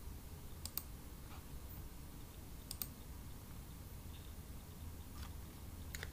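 Quiet room tone with a low steady hum, broken by a few brief, sharp clicks, most of them in quick pairs, about every two seconds.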